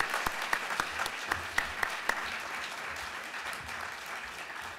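Audience applauding, many hands clapping at once, the clapping gradually dying away toward the end.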